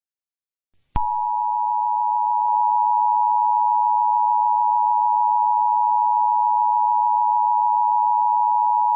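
Emergency Alert System–style attention signal: a steady two-note alarm tone that starts abruptly about a second in and holds unchanged for about eight seconds.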